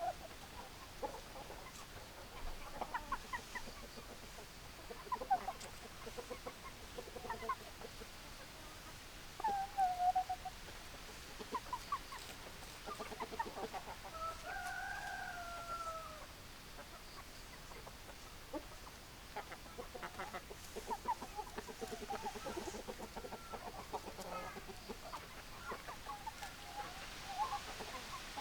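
Chickens clucking: many short clucks throughout, with a rooster crowing once in a long call of about two seconds about halfway through.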